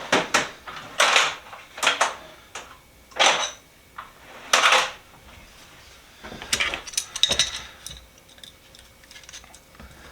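Metal hand tools clinking and clattering as they are picked up and set down on a workbench: a string of sharp metallic clinks with short ringing, thickest about six to seven seconds in.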